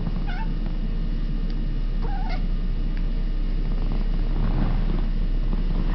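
Domestic tabby cat making two short, odd calls about two seconds apart, the noises called "monkey noises", over a steady low hum.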